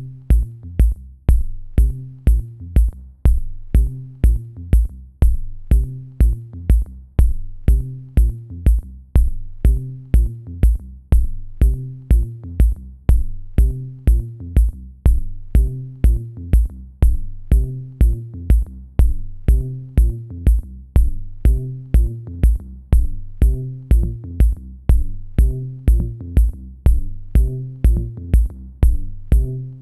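Background music with a steady beat, about two beats a second, over a repeating low bass line.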